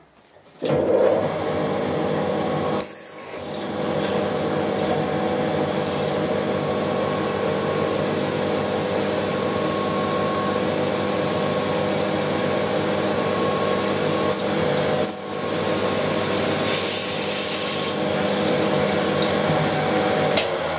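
Milling machine spindle running a 7.9 mm twist drill into a square bar, a steady machine hum and whine that starts about a second in. The sound dips briefly twice, about three seconds in and again around fifteen seconds, and eases off at the very end.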